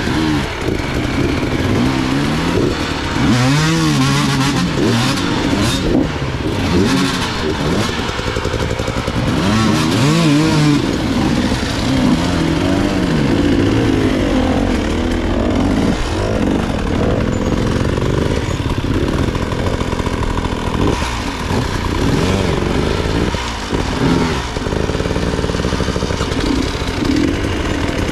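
Motorcycle engine being ridden, its pitch rising and falling again and again as the throttle is opened and closed in short surges.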